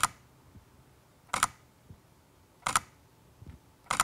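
Canon EOS R mirrorless camera's mechanical shutter firing single shots in its regular single-shooting mode, a crisp double click about every second and a half.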